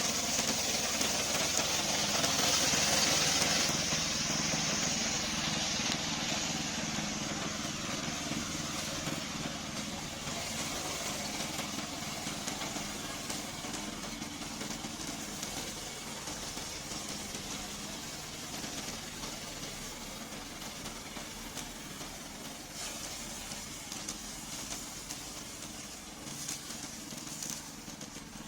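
Gasoline engine of a remote-control slope mower running steadily, loudest in the first few seconds and then growing gradually fainter.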